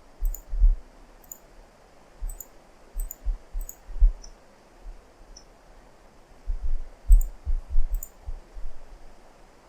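Computer mouse clicking in irregular clusters. Each click has a sharp tick over a dull low thud, with a steady faint hiss between clicks.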